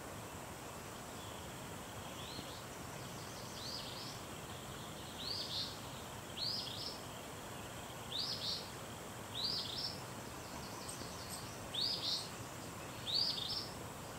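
A bird repeating a short, high, up-sweeping chirp about every second and a half, about eight times, over a steady background hiss.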